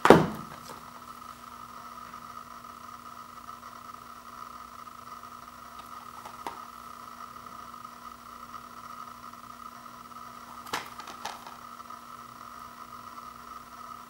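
A sharp plastic knock as a shrink-wrapped Blu-ray case is grabbed up off a wooden floor, then a few small clicks of the case being handled, once about six seconds in and twice in quick succession near the end, over a steady background hiss with a faint constant tone.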